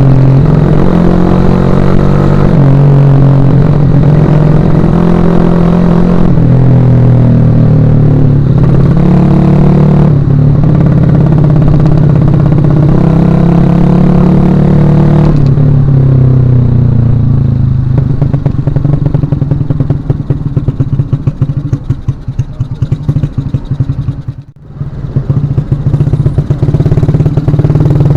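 Suzuki Shogun Axelo R's 125 cc single-cylinder four-stroke engine running while being ridden: for about the first half the revs climb and drop again and again as it pulls through the gears, then it settles to lower, more uneven running, dipping briefly near the end.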